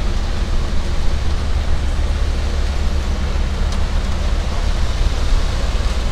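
Concrete mixer truck's diesel engine running steadily with its drum turning as it discharges concrete, a low, even rumble.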